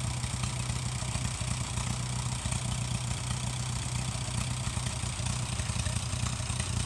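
Farmall M tractor's four-cylinder engine idling steadily, with an even rapid pulse.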